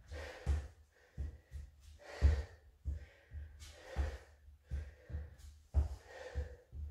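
A man breathing hard in short, sharp breaths while doing reverse lunges, with dull thuds of trainers stepping on a wooden floor about once or twice a second.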